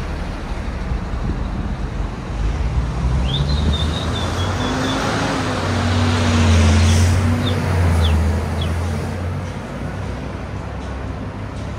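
Street traffic, with a vehicle engine passing close: its low rumble swells about halfway through and fades near the end. A few brief high squeaks sound over it.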